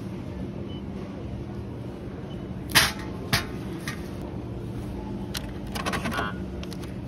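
Onions set down into a stainless steel supermarket scale pan: two sharp metallic knocks about half a second apart, a lighter knock after, then a few small clicks and rattles, over a steady background hum.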